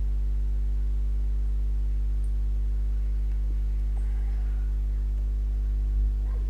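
Steady electrical mains hum: a low drone with a stack of evenly spaced overtones, with a soft low bump near the end.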